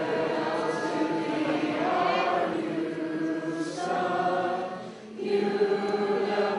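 A large group of voices singing a slow song together in unison, in long held notes, with a short dip about five seconds in.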